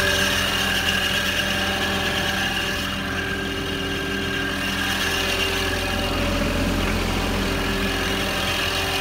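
Riding lawn mower's engine running steadily.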